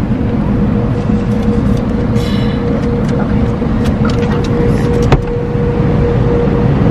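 Automatic car wash heard from inside the car cabin: a steady rumble and hum of the wash machinery, with water jets starting to spray the windshield near the end. There is a single click about five seconds in.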